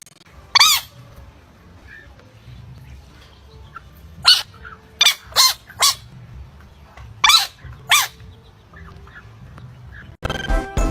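Dog barking: seven short, high-pitched barks or yips, spaced irregularly, with a close group of three about five seconds in. Music starts just before the end.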